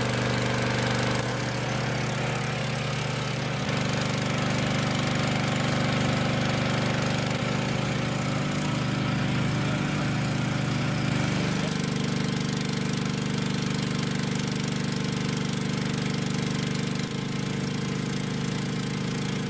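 Small engine of a water pump running steadily, drawing water through a large suction hose, with its pitch shifting slightly twice.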